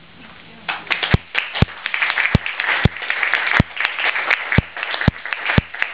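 An audience breaks into applause a little under a second in. Single louder claps stand out at a steady pace of about two a second over the crowd's clapping.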